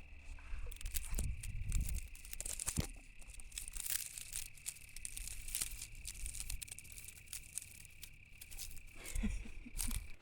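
Dry grass and brush rustling and crackling close to the microphone in irregular bursts, with a few low thumps. A steady high-pitched tone sits underneath and cuts off at the very end.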